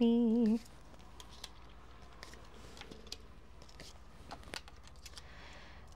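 Faint, scattered light clicks and taps of tarot cards being handled on a table, a few irregular ticks over several seconds.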